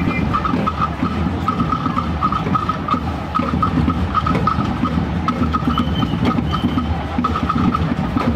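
Scout marching band's bass drums and snare drums playing a steady, dense marching beat.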